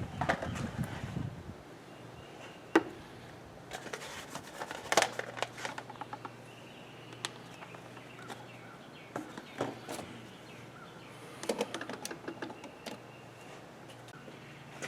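Scattered light clicks, knocks and clatter of hand work on engine parts and tools, with faint bird chirps behind.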